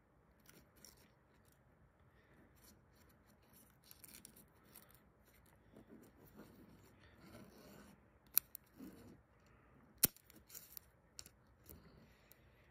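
Hands handling an Apple Pencil 2 cardboard box and peeling off its plastic shrink-wrap by the pull tab: quiet scraping and crinkling, with two sharp clicks about eight and ten seconds in.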